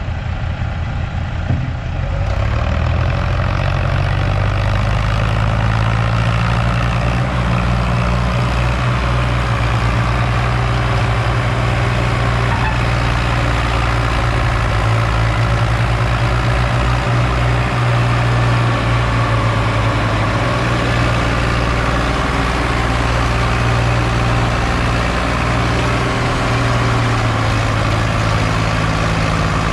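Sonalika tractor's diesel engine running hard under heavy load, hauling a loaded sand trolley uphill. The load is enough to lift its front wheels. The engine comes up to a steady, loud pull about two seconds in and holds there.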